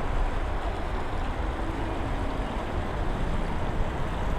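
Steady outdoor background noise: an even low rumble with a hiss above it, without breaks or distinct events.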